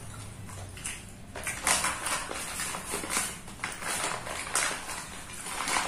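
Close-miked eating sounds: wet chewing and lip smacks in irregular short bursts, mixed with the crinkle of the paper food wrapping being handled.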